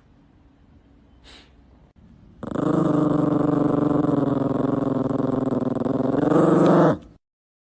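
A dog growling: one long, steady, rough-edged growl that starts about two and a half seconds in, holds for about four and a half seconds and cuts off abruptly.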